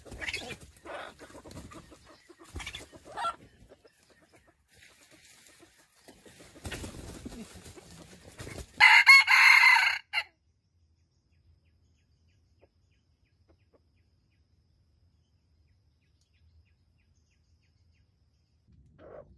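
Red junglefowl rooster giving a few soft clucks, then crowing once, a short loud crow about nine seconds in.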